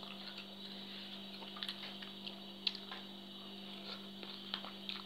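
Faint wet chewing and mouth sounds of someone eating papaya salad and rice noodles with her fingers, with a few small clicks, over a steady low hum.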